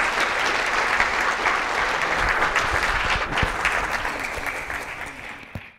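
Audience applauding, fading away over the last two seconds and cutting off abruptly near the end.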